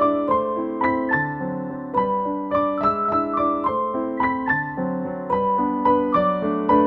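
Soft background piano music: a gentle stream of keyboard notes and chords at an even pace.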